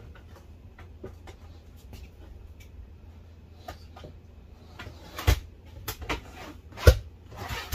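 A plywood drawer being worked onto metal drawer slides: faint clicks and rattles, then a few sharp knocks from about five seconds in, the loudest a little before the end, as the drawer is shoved and knocked home. The drawer is catching instead of locking onto the slides, which is what happens when the slides are not pulled out first.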